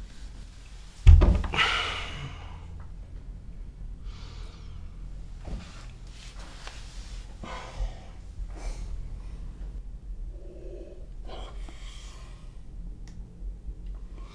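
A man's sharp gasp with a low thud about a second in, the loudest moment. Then come heavy, uneven breaths and sighs, with a short low groan near eleven seconds.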